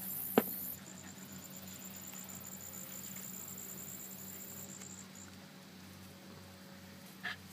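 A dog harness being handled and put on a dog: a sharp click about half a second in, a smaller one near the end, and faint rustling between, over a steady low hum.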